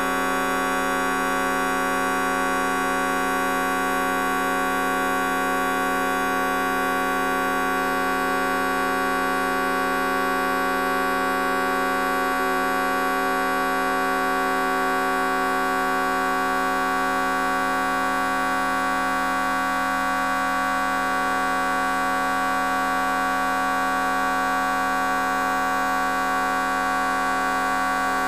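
A fart sound effect time-stretched to last an hour, heard as a loud, steady buzzing drone that holds several pitches at once without changing.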